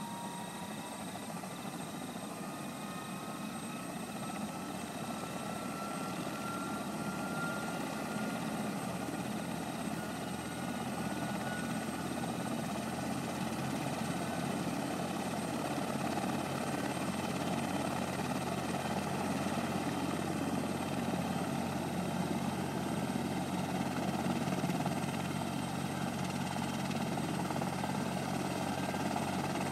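Rescue helicopter's rotor and engine drone, steady and growing gradually louder as it comes in, with a thin whine rising slowly in pitch over the first half.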